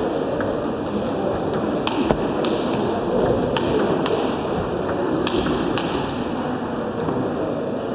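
Table tennis ball clicking sharply off rackets and the table during a rally, at irregular spacing about every second, over the steady noise of a large sports hall where other tables are in play.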